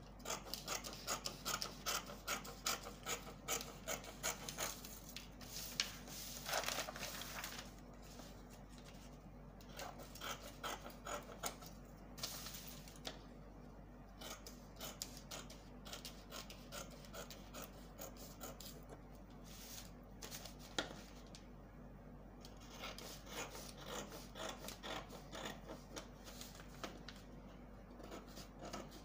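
Faint rubbing and scratching on pattern paper as it is worked by hand: runs of quick short strokes, with quieter pauses between the runs.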